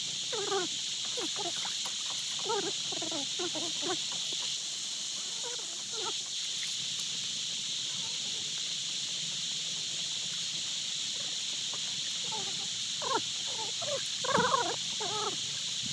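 Steady high-pitched drone of insects such as cicadas or crickets, with short stretches of indistinct voices near the start and again near the end.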